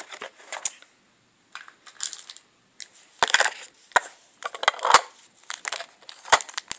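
Handling noise of toy dishes and play food: a scatter of sharp clicks, light knocks and rustles as the small pieces are moved about, with a short silent break about a second in.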